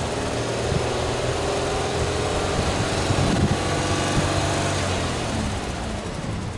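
Subaru Impreza hatchback's turbocharged flat-four boxer engine running, heard at the exhaust tailpipe: a steady low exhaust note with only slight changes in pitch.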